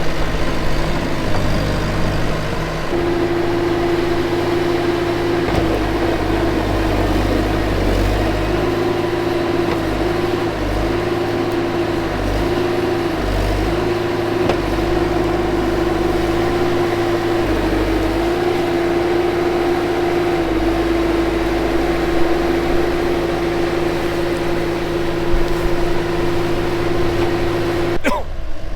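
Bobcat skid steer's diesel engine running steadily as the machine is driven and worked, with a steady hum whose pitch sags briefly several times under load. The sound breaks off abruptly near the end.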